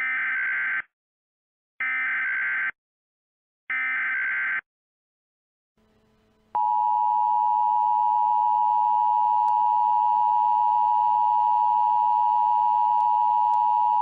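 Three short bursts of Emergency Alert System SAME header data, a harsh two-tone digital screech, spaced about two seconds apart. About two seconds later a long, steady single-pitch attention tone begins over faint radio hiss and hum.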